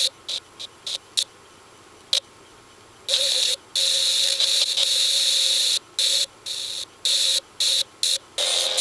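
Radio static hiss from a Sony SRF-M85V Walkman radio playing through earbud headphones, cutting in and out as its buttons are pressed: a few short blips in the first second or so, then longer stretches of hiss with brief gaps from about three seconds in.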